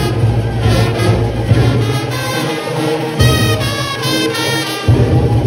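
Junkanoo band playing live, with trumpets and other brass horns over a steady low bass. The bass drops out for about two and a half seconds past the middle, then comes back.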